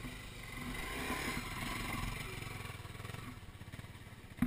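Dual-sport dirt bike passing at low speed, its engine rising as it comes near and fading as it moves away, with a sharp knock at the very end.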